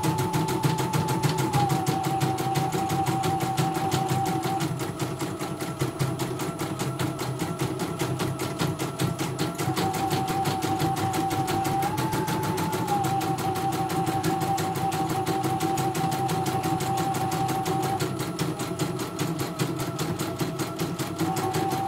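CNY portable computerized embroidery machine stitching a design: a rapid, steady needle clatter over a motor whine that steps up and down in pitch several times.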